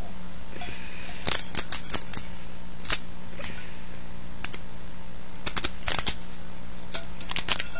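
Handling noise from a composite baseball bat being turned over by hand: irregular clusters of sharp clicks and taps, as from fingers and the plastic wrap on the bat.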